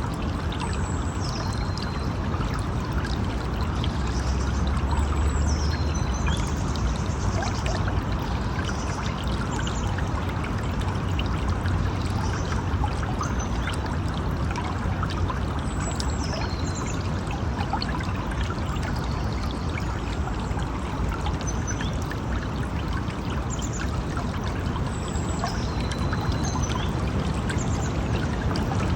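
River water flowing and splashing steadily, with faint short high chirps here and there.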